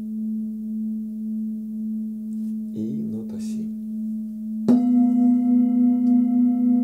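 Hand-forged Nepalese singing bowls ringing: one bowl's low tone sounds with a slow, regular wavering, with a short rustle of handling a little before the middle. About two-thirds through, another bowl is struck and rings on louder and slightly higher, with clear overtones above its note.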